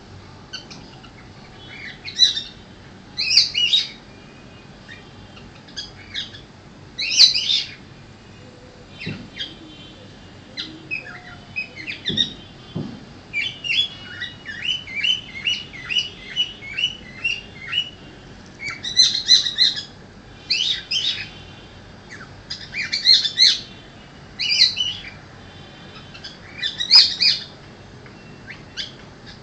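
Cockatiel chirping and whistling in short, high calls, with a quick run of rapid chirps about halfway through and louder call clusters near the end.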